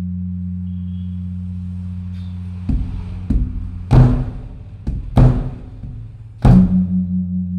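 Large temple drum beaten as the evening signal: about six heavy strokes in an uneven run, starting about a third of the way in, the loudest near the middle and a last big stroke near the end. A deep steady ringing hum fills the gaps, fades while the strokes come and swells again after the last one.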